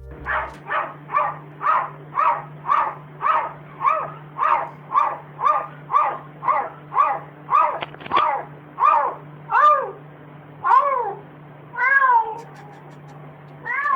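A cat giving a fast run of short, bark-like calls, about two a second, like a cat imitating a dog's bark. Near the end the calls slow into a few longer, drawn-out meows.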